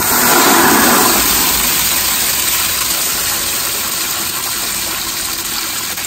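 Water rushing and hissing out of the opened filter on a combi boiler's central heating circuit as the system is drained to lower too-high pressure. Loudest in the first second, then easing off slowly.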